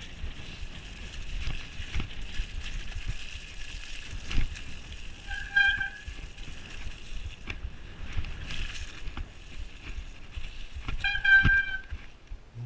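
Mountain bike ridden over a wet, muddy, rutted track: the tyres roll through mud and puddles while the frame takes frequent knocks and rattles from the bumps. There is a brief high squeal about halfway through and another near the end.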